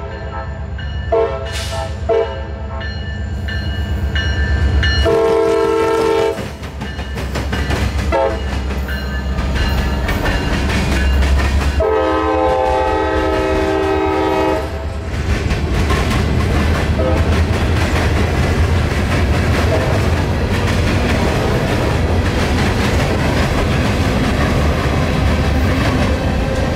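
Diesel locomotive's multi-chime air horn sounding as a CSX freight train approaches: a couple of short blasts near the start, a long blast about five seconds in, a short one, then a last long blast around twelve seconds in, over the low rumble of the engine. The freight cars then roll past with steady wheel-on-rail noise and clickety-clack, a sound the railfan takes as a sign that the rail was recently ground by a Loram rail grinder.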